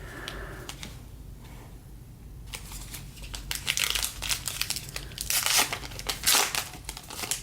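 A trading card pack wrapper being torn open and crinkled by hand, with two louder stretches of rustling and tearing, the first a couple of seconds in and the second near the end.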